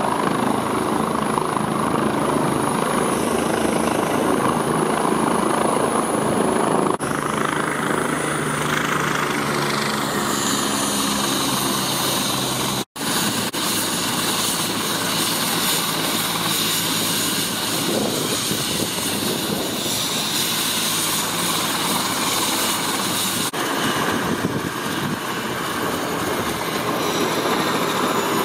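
Helicopter running close by with its main rotor turning, setting down and then turning on the landing pad. A high whine falls in pitch about nine seconds in. The sound cuts out for an instant about thirteen seconds in, then carries on steadily.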